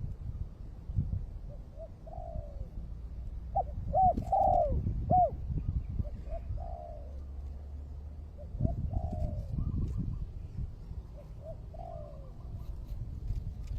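Spotted dove (terkukur) cooing in a string of short phrases, a call the title says is aimed at a rival bird. A low rumble runs underneath.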